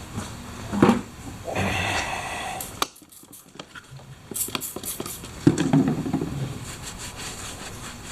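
Handling noises in a garage: scattered clinks and knocks of small hard parts being moved and set down, with a short stretch of scraping noise, a brief near-silent gap about three seconds in, and a heavier knock with clatter a little after halfway.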